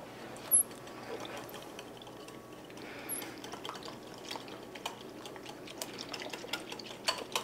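Wire whisk stirring half-and-half and acacia fiber powder in a glass measuring cup: faint, quick ticks of the whisk against the glass over a soft swish of liquid.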